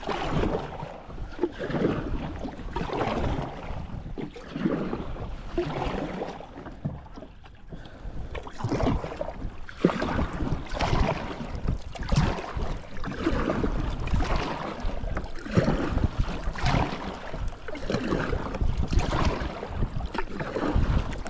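Kayak paddle strokes splashing in calm water, about one a second, with a brief lull about seven seconds in. Low wind rumble on the microphone.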